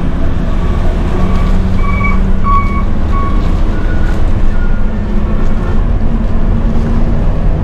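Bus engine working hard on a steep climb: a loud, steady low rumble with a hum. Over it, a string of short high beeps at changing pitches sounds from about one second to five and a half seconds in.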